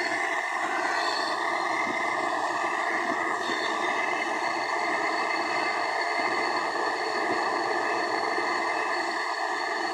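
Electric welding arc on aluminum tubing: a steady, unbroken hissing noise.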